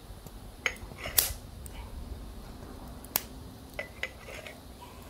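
Kitchenware clinking and knocking: about five short, sharp clicks, the loudest about a second in.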